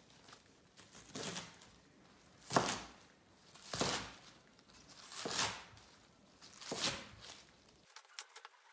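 Chef's knife slicing through a bundle of green onions on a wooden cutting board: five slow cuts, a little over a second apart, each a short rasping slice that ends on the board.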